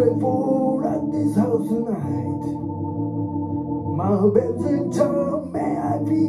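Solo live performance: a man singing over sustained organ-sound chords that he plays on a stage keyboard. The chords are held steady, and the voice comes in phrases over them at the start and again about four seconds in.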